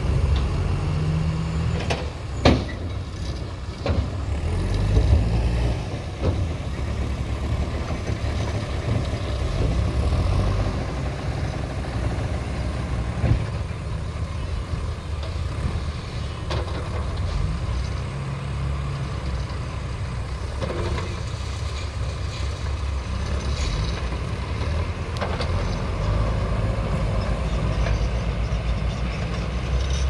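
Diesel engines of tipper trucks and a JCB backhoe loader running with a steady low rumble. A few sharp knocks stand out in the first five seconds, and one more comes about thirteen seconds in.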